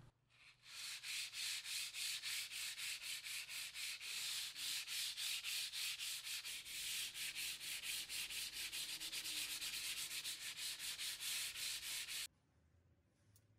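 Folded sandpaper rubbed by hand over the rusty steel key plate of an IBM Model F XT keyboard: quick, even back-and-forth scratchy strokes, about four a second, that stop abruptly near the end.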